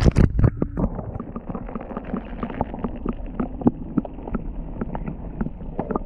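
Footsteps wading through shallow water. A few loud knocks and splashes in the first second, then an even walking rhythm of about three steps a second.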